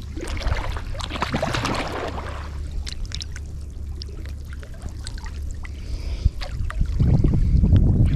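Water sloshing and trickling, with scattered small clicks in the middle and a heavier low rumble near the end.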